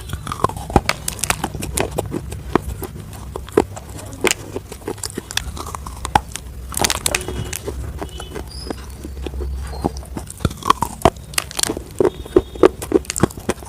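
Chicken nuggets being bitten and chewed close to the microphone: irregular crunches and clicks, busiest near the end.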